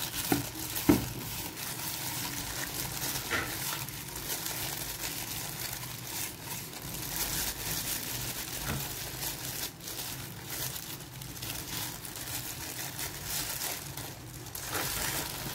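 Thin plastic glove crinkling and rustling as a hand rubs baking-soda paste over a rusty adjustable spanner, with a couple of sharp knocks in the first second.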